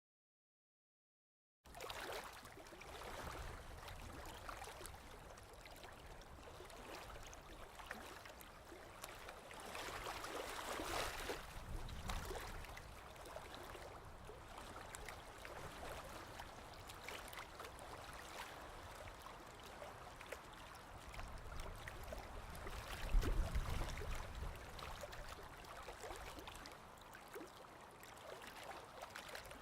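Faint outdoor ambience: an even hiss with scattered small clicks, and a louder low rumble that swells about 23 seconds in.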